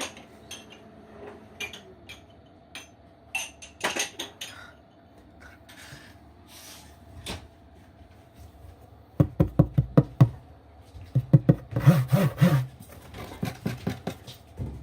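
Scattered light knocks and clicks, then two runs of rapid scraping strokes in the second half, over a faint steady hum.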